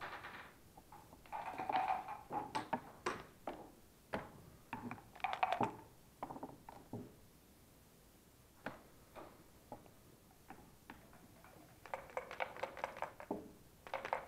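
Backgammon checkers clacking and sliding as they are moved on the board, in short clusters of clicks. Near the end a fast rattle of dice shaken in a cup, then the dice thrown onto the board.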